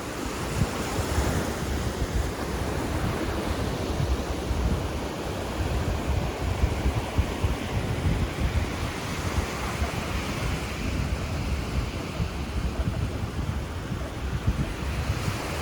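Ocean surf washing onto a beach in a steady wash of noise, with wind buffeting the microphone in low gusts.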